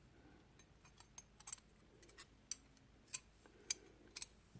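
Faint, scattered clicks and clinks of small old metal bicycle wrenches being handled, about half a dozen light taps spread over a few seconds.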